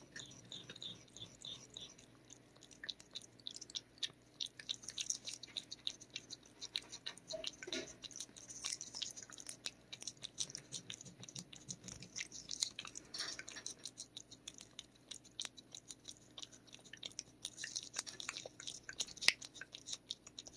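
Cat licking paste treat from a squeeze tube: a rapid, continuous run of small wet tongue clicks and smacks.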